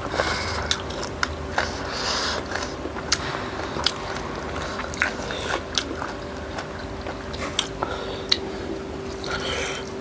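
Close-miked eating sounds: chewing and biting on a chicken leg piece, with sharp wet mouth clicks and smacks at irregular intervals, over a faint steady hum.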